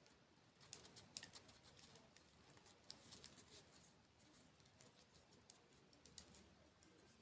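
Faint, close-miked eating sounds: scattered crisp clicks and crackles of chewing, loudest about a second in and again around three seconds.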